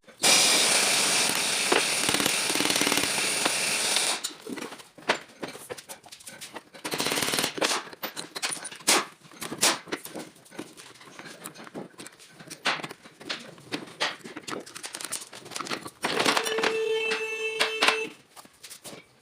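A power tool runs loudly for about four seconds and stops, followed by a long series of irregular sharp metal clicks and knocks of varying strength while a CV joint is worked on.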